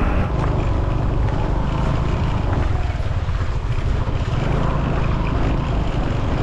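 Steady low rumble of wind buffeting the microphone over the running noise of a scooter being ridden.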